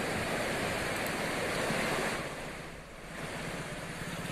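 Fast floodwater rushing past a submerged road causeway, a steady noisy rush with wind buffeting the microphone, dipping briefly about two-thirds of the way through. A motorcycle engine hums faintly near the end as it rides through the water.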